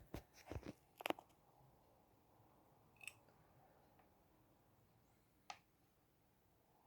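Faint handling noise: a few quick clicks and rustles in the first second, then near silence broken by two single small clicks, about three and five and a half seconds in.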